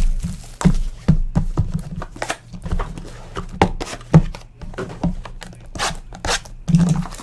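Cardboard trading card boxes being handled and opened on a table: irregular knocks and clicks of cardboard, with quick tearing and rustling of the packaging.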